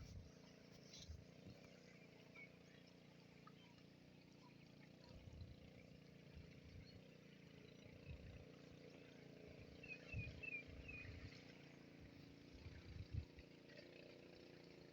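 Near silence: a faint steady low hum, with a few soft low thumps and a short run of faint high chirps about ten seconds in.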